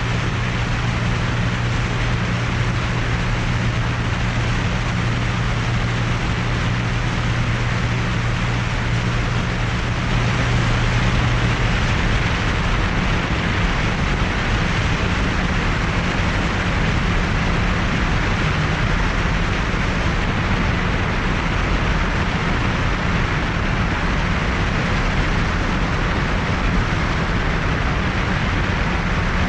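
Cessna 182's six-cylinder piston engine and propeller droning steadily in cruise flight, a low hum under a steady rush of noise. About ten seconds in the sound shifts and grows slightly louder, to wind and engine noise heard from outside the cabin.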